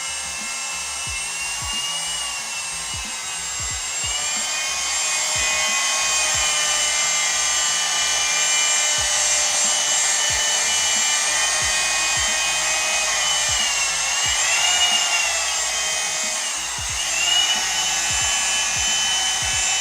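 Electric drill running at low speed, mixing two-part epoxy resin in a bucket. Its motor whine holds steady, dips in pitch briefly about four seconds in and twice near the end, then cuts off suddenly.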